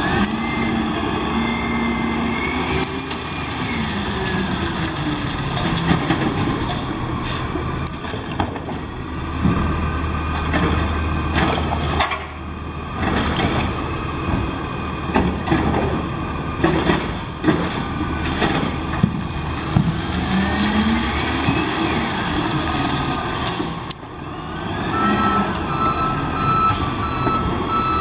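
Autocar ACX garbage truck with a Scorpion automated side-loader body driving off and turning around: its diesel engine rises and falls in pitch, with a string of short sharp air-brake hisses in the middle. Near the end a steady reversing beeper comes in.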